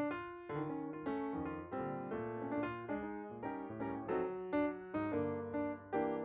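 Background piano music: a gentle sequence of chords and single notes, each struck and left to fade.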